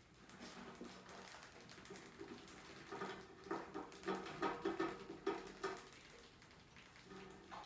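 Rats scrabbling over a wire fan-guard lid on a plastic bucket, their claws making faint, irregular scratches and light taps that come thickest about halfway through.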